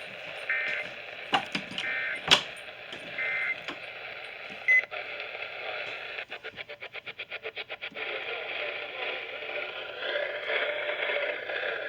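Emergency Alert System end-of-message tones over broadcast radio: three short digital data bursts about a second apart, marking the end of the severe thunderstorm warning. A single short beep and some clicks follow, then a fast pulsing buzz for a couple of seconds over hissy radio static.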